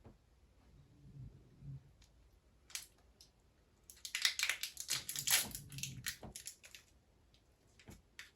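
Crackling, rustling handling noise, a dense burst of about two and a half seconds from a little before the middle, with a few scattered single clicks before and after.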